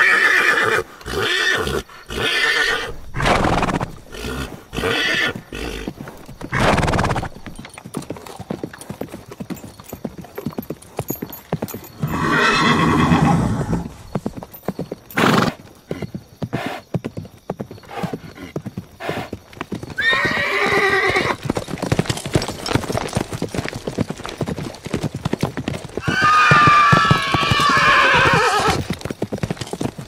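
Horse hooves clip-clopping in a long run of quick, sharp knocks, with horses neighing over them. A neigh and a string of short loud cries fill the first few seconds. Further neighs come about twelve and twenty seconds in, and a longer one near the end.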